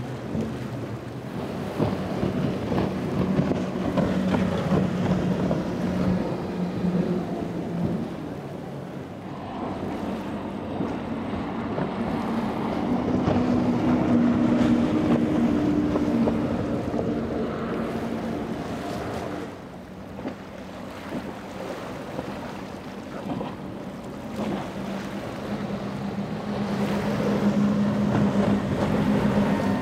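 Outboard-powered center-console boats running at speed past the camera one after another, two of them on quad Mercury Racing 450R supercharged V8 outboards: a steady engine drone that swells and fades with each pass, over the rush of wind and water.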